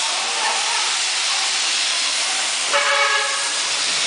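A steady hiss of noise throughout, with a short, high, pitched shout from a player about three seconds in.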